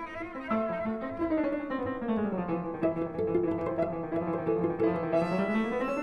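Background instrumental music: piano with bowed strings, the melody stepping down to a held low note and climbing again near the end.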